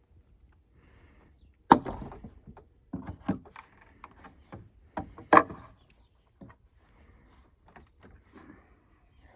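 Rough-cut wooden planks being knocked and pried off corral fence posts: a series of sharp wooden knocks and clatters, loudest near two seconds in and again about five and a half seconds in.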